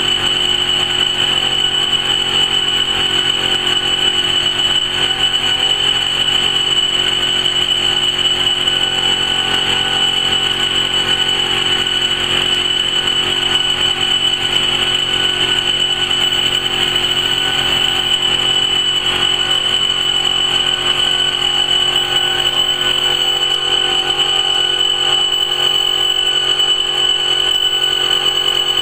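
Laser fabric cutting machine running, with a steady high-pitched whine over a constant machine hum.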